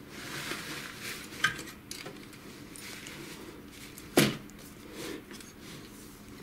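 Metal and plastic parts of an HP LaserJet 6L printer being handled during reassembly. There is rattling and rustling, a sharp click about a second and a half in, and a louder knock about four seconds in.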